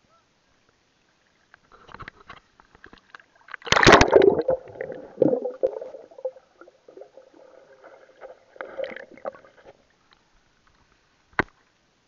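Water splashing and gurgling right at the microphone: scattered crackles, then a loud splash about four seconds in, followed by several seconds of sloshing and gurgling that dies away, and a single sharp click near the end.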